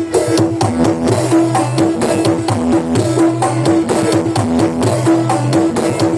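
Loud percussion-driven music played through a large carnival sound-horeg system, with a rapid, steady drum beat over a heavy bass line.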